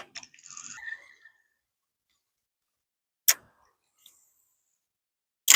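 Three sharp clicks or knocks, one at the start, one about three seconds in and one near the end, with a brief faint rustle just after the first and silence between.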